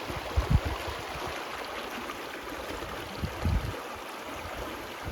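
Steady rush of flowing creek water, with a couple of brief low thumps about half a second in and again around three and a half seconds in.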